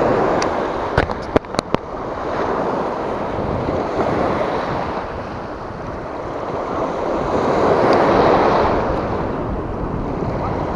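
Sea surf breaking and washing over a rocky reef, in rough water with a strong current, swelling louder about eight seconds in. A few sharp clicks come about a second in.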